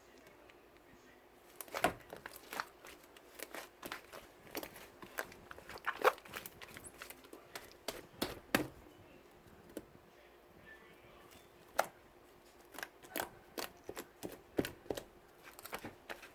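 Irregular sharp clicks and taps, as of small objects being handled, coming in scattered clusters with a pause in the middle, over a faint steady hum.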